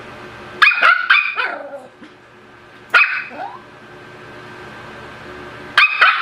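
Pomeranian puppy barking in high-pitched yaps, each trailing off downward in pitch: a quick run of two or three about a second in, a single yap near three seconds, and another quick pair at the end.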